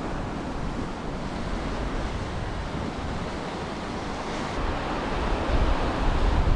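Ocean swell surging and washing over granite rocks below, with wind buffeting the microphone. The wash swells louder near the end.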